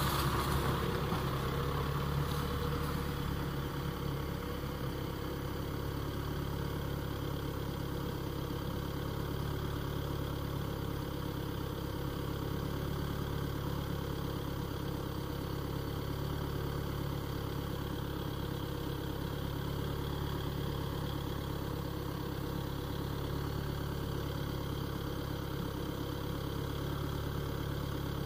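A car arrives, louder for the first couple of seconds, then its engine idles steadily close by.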